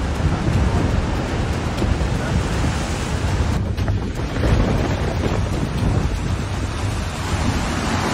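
Large ocean waves breaking on rocks, a loud continuous rumble, with wind on the microphone.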